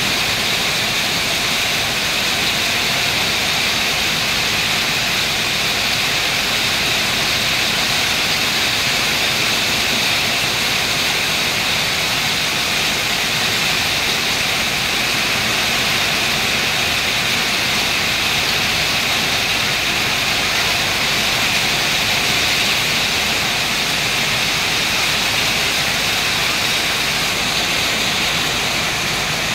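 Heavy rain pouring down hard: a dense, steady hiss of downpour that holds even throughout.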